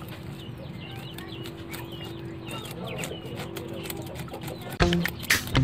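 Scales being scraped off a raw milkfish on a plastic cutting board: a run of short scratchy clicks, with birds chirping in the background. Loud music comes in near the end.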